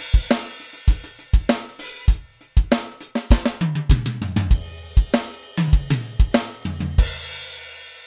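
Sampled acoustic drum kit played from an electronic kit: multi-layer drum samples on a SmartWAV 2 board, triggered over MIDI from an Alesis Nitro module. It plays a kick, snare and hi-hat groove with tom fills that step down in pitch, then ends on a crash about seven seconds in that rings out.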